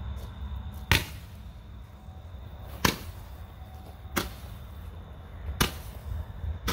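Roman candle-type firework shooting off its stars, a sharp pop about every one and a half seconds.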